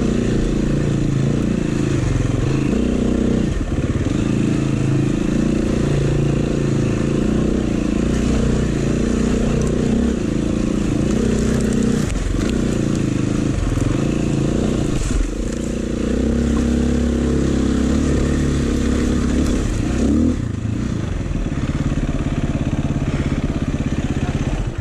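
Dirt bike engine heard on board from the rider's helmet camera, revving up and dropping back repeatedly, every second or two, as the bike is ridden along rough trail. Near the end it settles to a steadier, lower-revving note.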